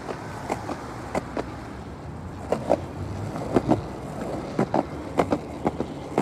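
Skateboard wheels rolling on pavement: a steady low rumble broken by irregular sharp clicks and knocks, one or two a second.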